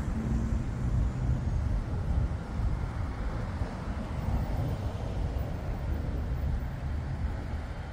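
Distant jet aircraft giving a steady low rumble.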